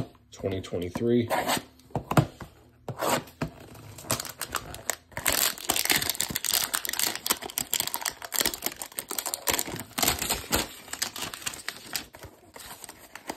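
Clear plastic shrink wrap being torn and crinkled off a cardboard trading-card box, a dense run of crackling from about five seconds in.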